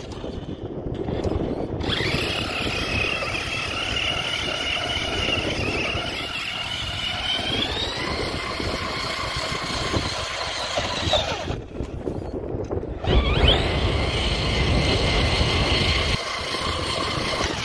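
Traxxas Rustler 4x4's BL-2S brushless electric motor whining as the truck spins in circles on ice. The whine steps up in pitch about eight seconds in and drops out briefly a little past the middle. It then comes back, with a low rushing noise under it for a few seconds.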